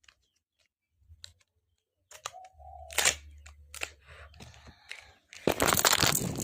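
Parcel packaging being torn open and crinkled by hand: scattered clicks and rustles, one loud rip about halfway, then a longer, louder stretch of tearing and crinkling near the end.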